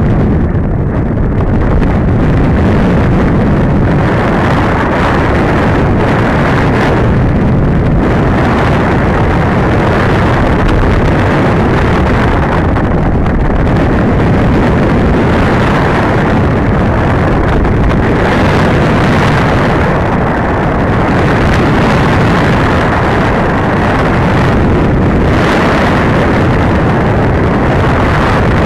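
Wind noise from airflow rushing over the onboard camera of an RC glider in unpowered flight. It is a loud, steady rush that swells and eases every few seconds, with no motor running.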